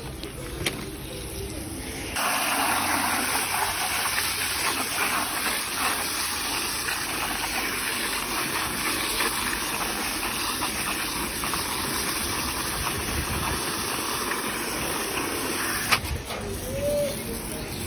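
Garden-hose spray nozzle jetting water into a bucket of detergent powder, a steady hissing gush that foams the suds. It starts suddenly about two seconds in and cuts off with a click shortly before the end.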